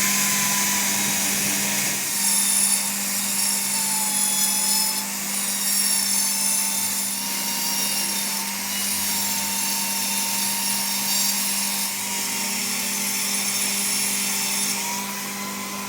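Metal-working machine, most likely a lathe turning metal, running steadily with a high hissing cutting noise and a slightly wavering whine throughout. A low hum sits under it, and a second low tone joins about three quarters of the way through.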